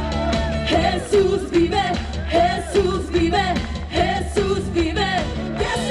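Live praise band music: a singer's melody over steady bass and drums.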